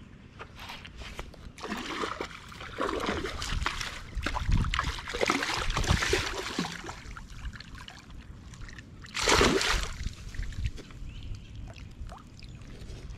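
A hooked fish thrashing and splashing at the water's surface close to the bank, in several bursts, the loudest a little after nine seconds in.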